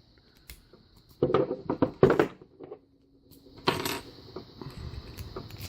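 Metallic clicks and rattles of a key being slid into an all-brass WB padlock and turned, with one sharp, louder click a little past halfway through.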